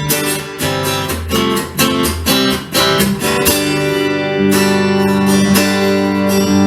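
Acoustic guitar strumming chords in a steady rhythm as a song's intro, then letting longer chords ring from about halfway.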